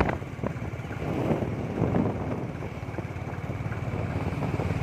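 Wind rushing over the microphone on a moving motorbike, over the steady low hum of the engine and road.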